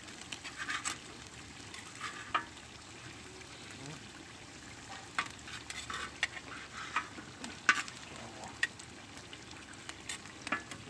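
Beef tripe frying in a wide black metal pan, a steady sizzle broken by irregular scrapes and clicks of a spatula and knife against the pan as the tripe is stirred. The cooking water has nearly stopped steaming, so the tripe is starting to fry.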